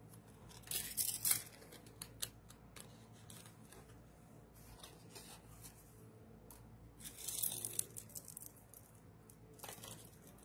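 Jewelry packaging being handled: brief crinkling and rustling about a second in and again about seven seconds in, with small clicks in between.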